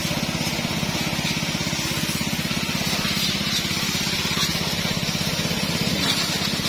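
A small petrol engine running steadily with a fast, even beat, mixed with the hiss of a hose spraying water onto a muddy motorcycle.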